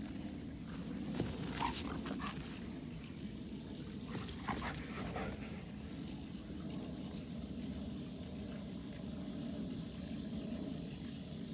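A dog giving short, pitched vocal sounds in two brief bouts, one about a second and a half in and another around four and a half seconds in.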